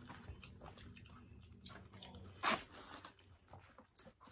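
Close-miked eating sounds of people chewing a sauce-covered wet burrito: soft wet mouth clicks and squishes, with one louder short sound about two and a half seconds in.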